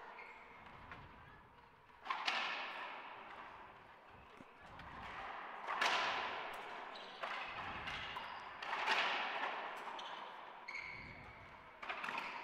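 Racquetball rally: the ball struck by racquets and smacking off the walls and floor, each hit echoing in the enclosed court. There are about seven hits, spaced unevenly a second or more apart.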